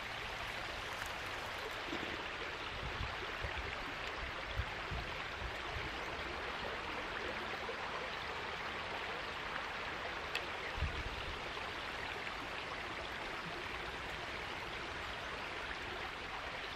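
Creek water running in a steady rushing babble, with a few soft low thumps scattered through it.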